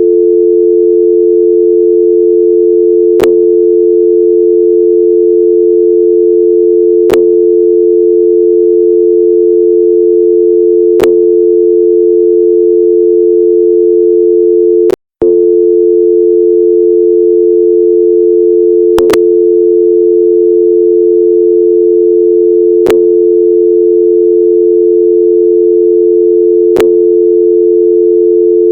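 American telephone dial tone: a steady, unbroken two-note hum, the North American 350 Hz and 440 Hz pair. Light clicks come about every four seconds, and the tone drops out briefly about halfway through.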